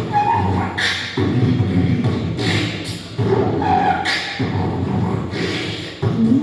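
Human beatboxing into a microphone: a continuous vocal bass line broken by sharp hissing snare-like sounds about every one and a half seconds, with a few short hummed tones.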